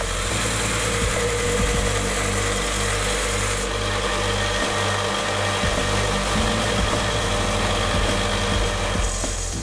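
Small vertical band saw running, its blade cutting through a brass clock frame, a steady machine hum with a hiss of cutting over it.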